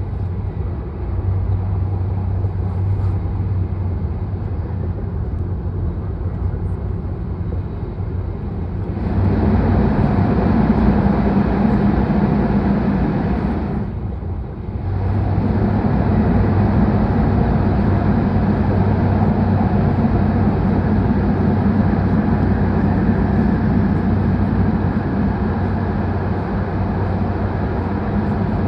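Cabin running noise of an H5 series Shinkansen train at speed: a steady rumble of wheels and air with a low hum. It gets louder about nine seconds in, dips for a moment near the middle, then turns louder again as the train runs into a tunnel.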